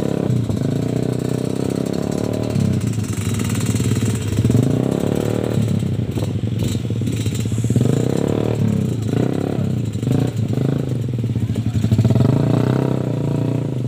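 Dirt bike engines running and revving unevenly, the revs rising and falling, as the nearest bike labours bogged in deep mud while it is pushed out.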